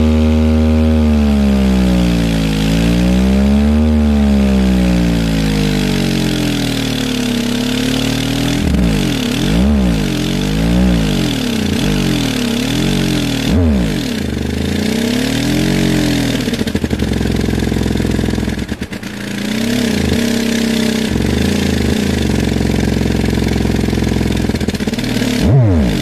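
Sundown Audio SA-8 V.3 8-inch subwoofer driven hard open-air on a test bench with a low bass tone, its cone at long excursion. The low hum carries buzzing overtones that slide up and down in pitch, with a rush of noise above. It dips briefly about two-thirds of the way through as the volume is stepped up toward its mechanical limit.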